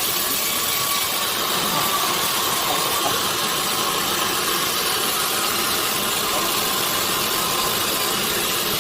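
Sawmill machinery running steadily, an even mechanical noise with a faint high hum.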